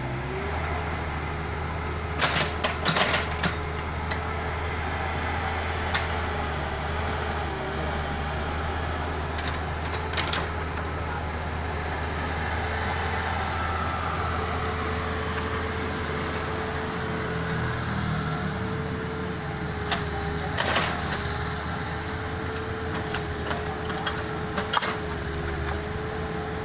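Excavator's diesel engine running steadily, with a series of sharp knocks every few seconds, a cluster near the start and more toward the end.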